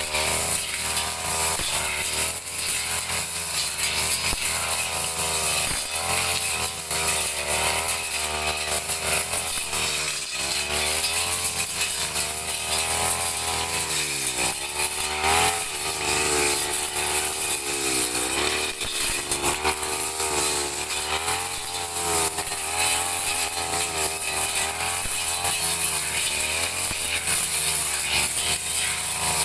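Petrol brush cutter running at high revs for the whole stretch, its engine pitch wavering up and down as it cuts grass.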